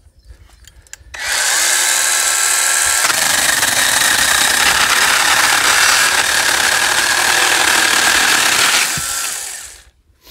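Worx 20V 5-inch cordless mini pruning chainsaw starting up about a second in and running freely with a steady motor whine. From about three seconds in its chain saws through a damp log of about 2.5 inches for some six seconds, then the motor stops near the end.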